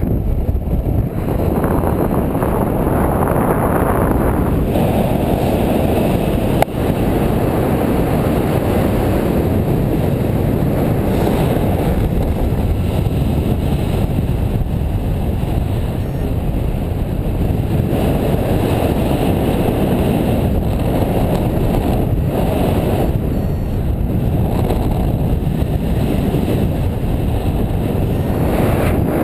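Airflow buffeting the harness-mounted camera's microphone during paraglider flight: a loud, steady low rumble of wind noise, with one sharp click about six and a half seconds in.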